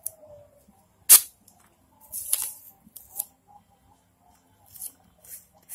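Masking tape being pulled from the roll and pressed onto a motorcycle cylinder head. There is one sharp crack about a second in and a short rasp of tape a second later, then soft scattered clicks and rustles.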